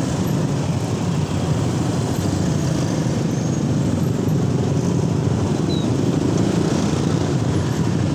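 Slow-moving motorcycle traffic: the rider's scooter and a crowd of surrounding scooters and motorbikes running at low speed, a steady engine rumble with road noise.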